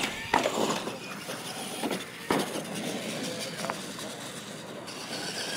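Radio-controlled monster trucks racing on dirt, their motors and drivetrains whining, with a knock as a truck lands from a jump just after the start and another sharp knock about two seconds in.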